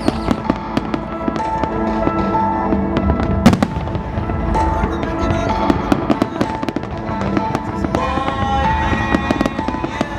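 Fireworks going off in a rapid string of sharp bangs and crackles, the loudest bang about three and a half seconds in, over music with long held notes.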